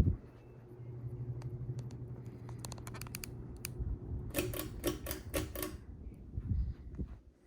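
Ceiling fan motor humming steadily, with scattered clicks and a quick run of sharp clicks a little past the middle; the hum cuts off near the end.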